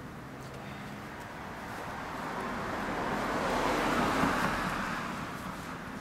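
A road vehicle passing on the street, its tyre and engine noise swelling to a peak about four seconds in and then fading away.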